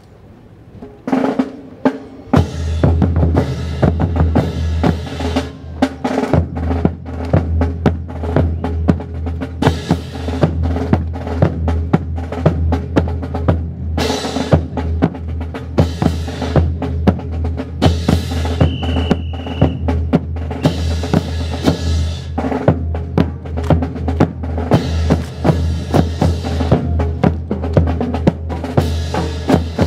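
Fast marching drum cadence of snare and bass drum, starting about two seconds in, over a steady low hum.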